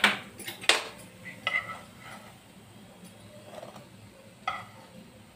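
A spatula scraping and knocking against a frying pan as fried potato tikkis are lifted out onto a plate. There are two sharp clinks in the first second, then a few fainter, ringing taps.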